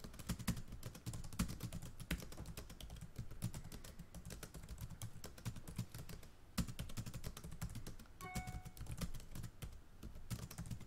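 Typing on a computer keyboard: quick, irregular key clicks as code is entered. A short steady tone sounds briefly about eight seconds in.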